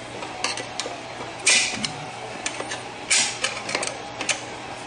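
A large steel snap ring clinks and scrapes against the Turbo 350's aluminium case as it is worked by hand into its groove under the anti-clunk spring. There are a string of irregular metallic clicks, with two louder clanks about a second and a half and three seconds in.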